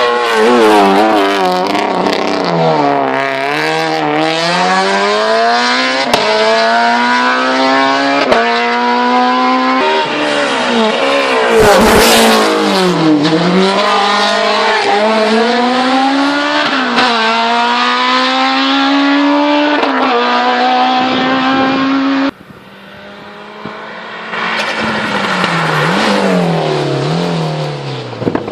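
Race car engine driven hard on a hill climb, revs climbing and dropping again and again as it shifts through the gears. There is a short sharp burst of noise about twelve seconds in, and the engine sound falls away suddenly about three-quarters of the way through before revving up again.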